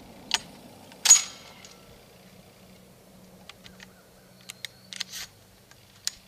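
Metallic clicks and clacks of a 12-gauge hunting shotgun being handled between strings of fire. A sharp metallic clack with a short ring comes about a second in, followed by a scatter of lighter clicks.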